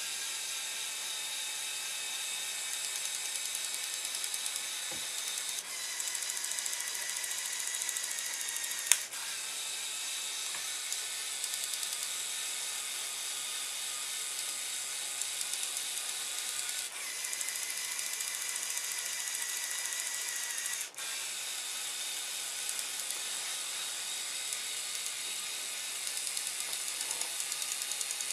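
Electric motors and plastic gears of a remote-controlled Lego Technic tow truck whirring steadily as it drives. The tone shifts a few times and there is one sharp click about nine seconds in.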